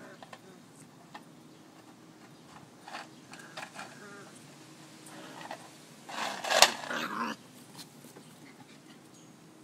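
Border collie puppy growling in short bursts as it plays with a piece of plastic on a wooden deck. About six seconds in comes a louder scuffle with a sharp click.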